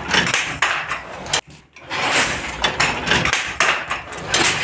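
Wooden handloom being worked by its foot treadles: a run of uneven wooden knocks and clacks from the treadles and loom mechanism.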